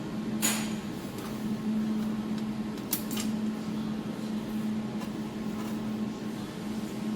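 Steady low hum of the laser welding machine's built-in chiller and cooling fan running, with a few sharp clicks, the first about half a second in and another about three seconds in.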